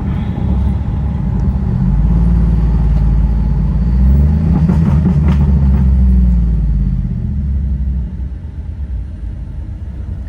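Ford F-150's 5.4-litre three-valve V8 exhaust through a Borla Pro XS muffler, heard from the cab while accelerating: the low exhaust note swells and climbs in pitch, then falls back, and drops off sharply about eight seconds in as the throttle is let off.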